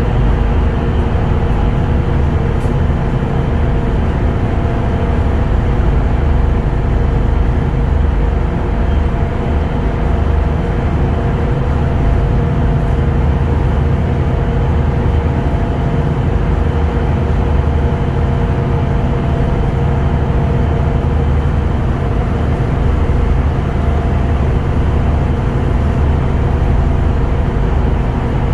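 Steady drone inside a moving vehicle: low engine and road rumble with a constant hum.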